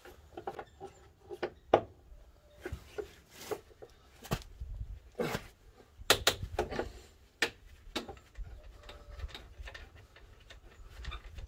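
Irregular clicks and knocks of a screwdriver and gloved hands working at a VW Crafter's plastic front grille and bumper trim, reaching for the Torx screws at the back of the mounting.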